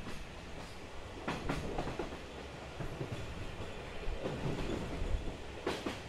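Taiwan Railway SPK32700-class ordinary passenger coach running at about 35–40 km/h and slowly picking up speed. A steady wheel-and-rail rumble is broken by a few sharp clacks over rail joints, once about a second in and again near the end.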